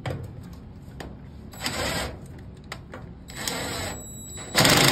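Tool work on the tightening screw of a Samsung dryer's belt tensioner: scattered clicks and a few short bursts of rattling, with the loudest a dense run of rapid clicks near the end. The tensioner is loose, which the repairman suspects is what lets the drum belt slip off.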